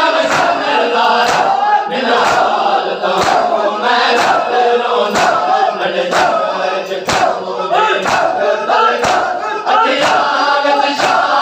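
A crowd of men chanting a mourning noha in unison while beating their chests in matam. The slaps land in time with the chant about once a second.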